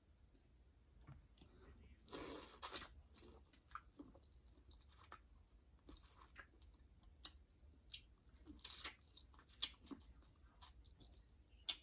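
A person chewing food close to the microphone: soft, wet mouth clicks and smacks, with a longer, louder burst of noise about two seconds in.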